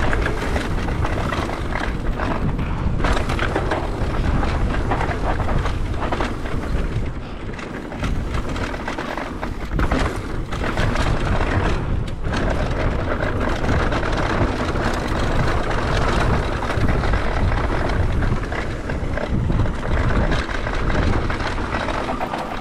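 Mountain bike riding on a dirt trail: wind buffeting the camera microphone over tyre noise on dirt, with frequent knocks and rattles of the bike over bumps.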